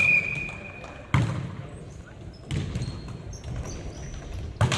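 Basketball being bounced hard on a gym court, two sharp hits about a second in and near the end, with high-pitched sneaker squeaks and the murmur of players' voices around it.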